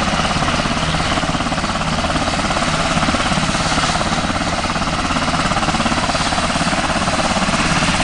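A USAF H-60 Black Hawk-family helicopter running on the ground with its main rotor turning: a loud, steady sound from its twin turboshaft engines, with a fast, even chop from the rotor blades.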